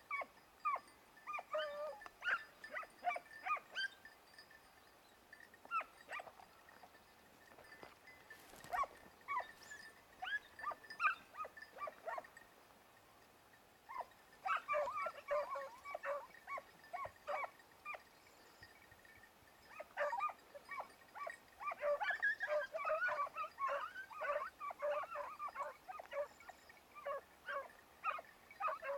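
Hunting hounds giving tongue on a hare's scent, in quick runs of yelps and bays. The calls come in bouts with short pauses and are thickest near the end, with several dogs calling over one another.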